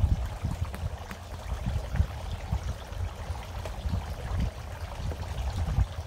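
Water splashing and trickling steadily down the tiers of a garden fountain, with a fluctuating low rumble underneath.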